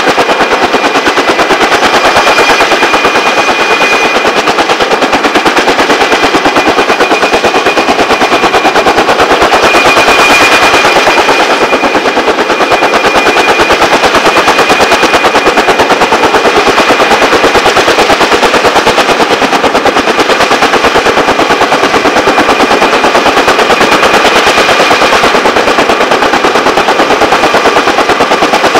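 Kaman K-MAX helicopter's intermeshing twin rotors beating rapidly and steadily, with a steady high whine running over the beat.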